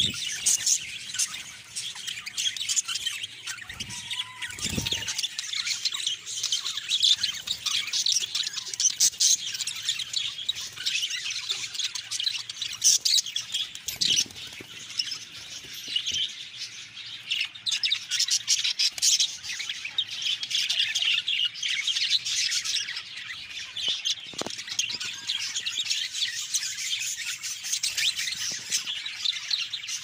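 A flock of budgerigars chattering and chirping without pause, a dense high-pitched warbling mix of many birds at once.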